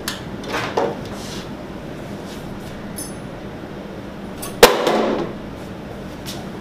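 An LCD separator machine slammed down onto a hard floor in a drop test of its sturdiness: one loud crash about four and a half seconds in, with a short rattle after it. A few small handling clicks come before.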